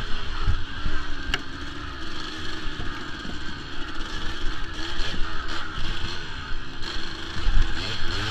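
Kawasaki KDX200 two-stroke dirt bike engine revving up and down as it is ridden along a trail, with low thumps from the bumps and a sharp click about a second in.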